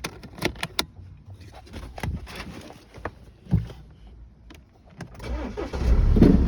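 A few sharp clicks, then about five seconds in a Mini Cooper's engine cranks and catches, running steadily and loudly: it starts now that the fuel pump is powered through an external relay in place of the failed fuel pump relay in the fuse box.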